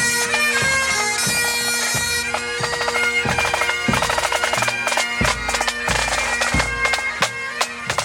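Bagpipes playing a tune over steady drones, with drums beating along. Several heavy bass-drum strikes about five to six and a half seconds in.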